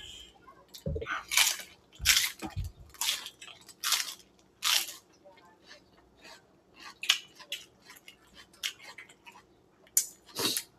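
Crisp lettuce leaf being bitten and chewed: a run of irregular, sharp crunches.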